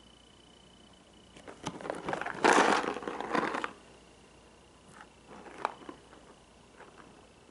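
Cardboard puzzle box handled and turned in the hands: rustling and rubbing for about two seconds, loudest near the middle, followed by a few light taps and clicks.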